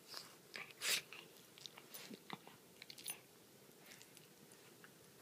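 Dog chewing and biting on a toy: irregular soft clicks and crunches of teeth on the toy, with one louder short burst of noise about a second in.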